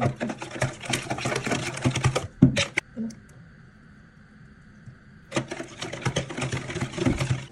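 Wire whisk beating eggs in a plastic bowl: a fast, steady clatter of the whisk's wires against the bowl, stopping for about two and a half seconds in the middle and then starting again.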